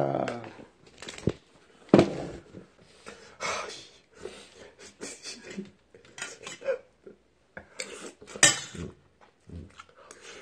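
Metal spoon clinking and scraping against a metal bowl while eating, in short irregular clicks with small gaps between them.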